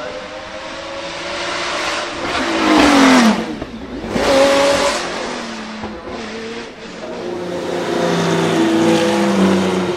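Porsche 917K's air-cooled flat-12 racing engine passing at speed. It is loudest about three seconds in, with its pitch dropping as it goes by, and loud again a second later. Near the end an engine builds up once more.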